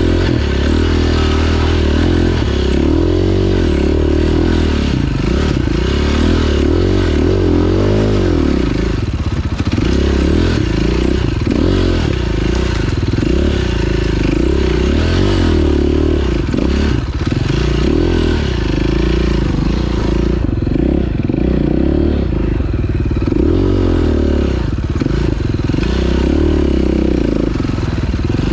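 2009 KTM 530 EXC's single-cylinder four-stroke engine under way on a dirt trail, its revs rising and falling continuously with the throttle, with scattered clattering from the bike.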